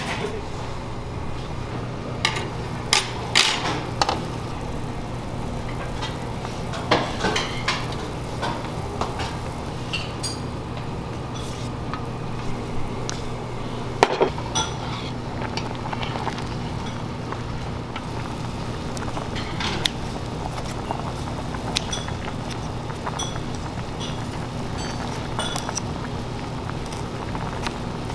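Dishes and utensils clinking and knocking now and then, over a steady low hum.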